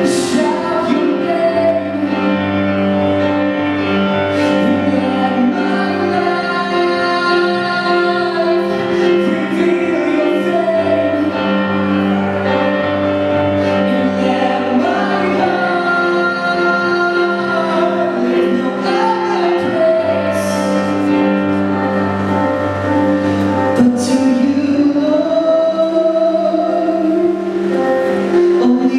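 A young man singing solo into a microphone while playing long, held chords on an electronic keyboard.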